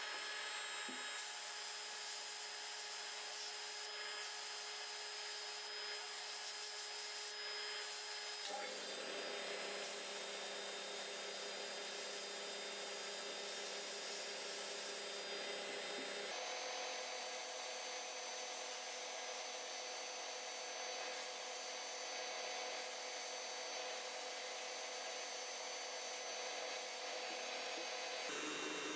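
Abrasive blast cabinet running: a steady hiss of compressed air and grit blasting small metal parts clean of rust and paint. The hiss changes slightly in tone about 8 and 16 seconds in and again near the end.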